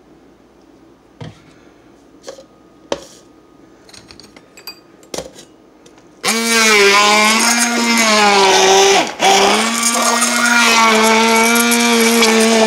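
A handheld immersion blender in a tall plastic beaker of strawberries and banana. A few light knocks and clinks come first; about six seconds in the motor starts and runs loud with a steady whine, its pitch dipping under load. It cuts out for a moment about nine seconds in, then runs on.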